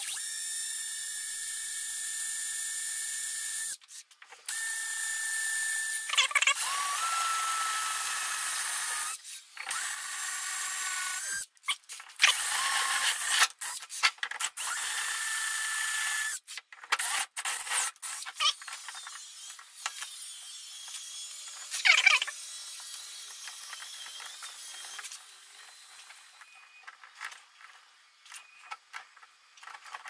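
Cordless drill boring a hole into a cast surfboard-resin gear shift knob, run in several bursts of a few seconds each with the motor whining and the bit cutting, stopping sharply between runs. In the second half, quieter short scrapes and clicks as the hole is worked by hand.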